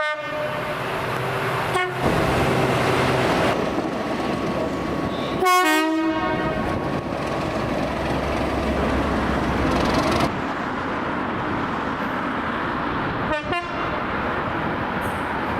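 Train horn sounding in several short blasts over the steady rumble of a moving train. The blasts come just after the start, about two seconds in, most strongly around five and a half seconds in, and again near the end.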